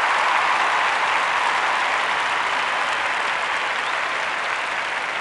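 Crowd applause, a dense even clapping that slowly gets quieter.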